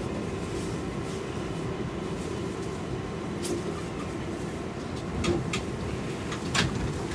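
Steady running noise inside a New York City Subway 7 train car, with a few sharp clicks and knocks in the second half.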